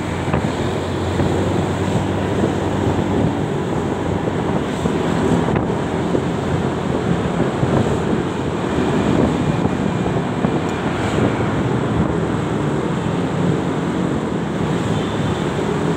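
Steady wind rush on the microphone of a moving motor scooter, mixed with the scooter's engine and road noise.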